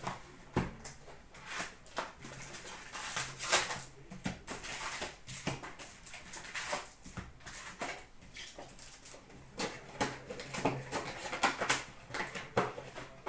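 Plastic wrap and cardboard of sealed trading card boxes being torn open and handled, with foil card packs crinkling and rustling as they are pulled out and stacked: a busy run of sharp crinkles and small clicks.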